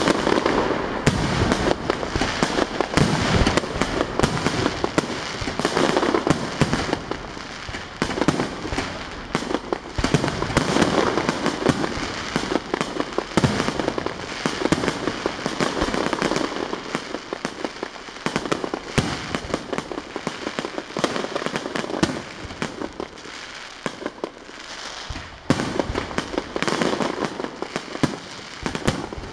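Aerial fireworks shells bursting in a continuous barrage, many bangs a second overlapping one another, each followed by a trailing echo.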